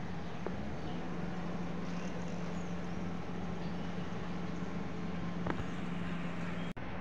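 Outdoor station ambience: steady background noise with a steady low hum and a few faint high chirps, briefly cutting out near the end.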